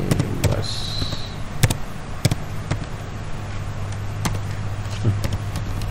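Computer keyboard keys pressed one at a time while typing a short line of text, giving sparse single clicks roughly a second apart over a steady low hum.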